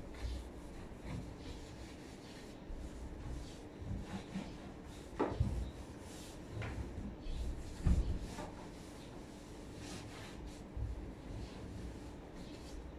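Cloth rubbing over wooden cabinet panels, with scattered knocks and thumps of the wooden doors and frame, the sharpest about five seconds and eight seconds in.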